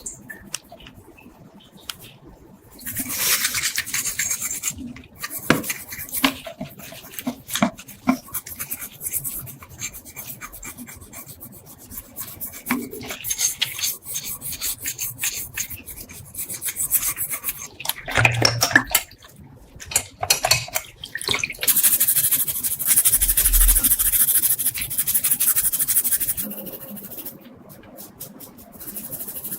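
Hand scraping and rubbing on a crusted metal object, in irregular strokes with scattered clicks, then a longer unbroken stretch of scrubbing past the two-thirds mark: rust and dirt being worked off.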